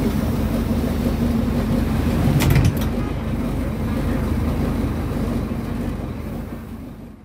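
Scania DC09 five-cylinder inline diesel of a Scania K250UB city bus running steadily, heard from inside the passenger cabin. A brief rattle comes about two and a half seconds in, and the sound fades away at the end.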